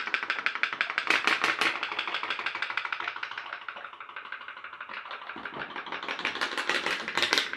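Homemade pop-pop (putt-putt) boat's steam engine popping in a rapid, even putt-putt rhythm, driven hard by a burning firelighter block under its boiler. The popping fades a little midway and picks up again near the end.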